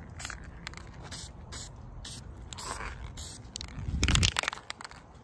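Aerosol spray paint can hissing in short bursts as black paint is sprayed onto steel brackets. A louder rough scraping rumble comes about four seconds in.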